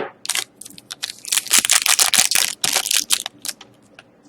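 Hockey cards and their foil pack wrapper being handled: bursts of crinkling and rustling with sharp clicks, busiest in the middle, then a few scattered clicks near the end.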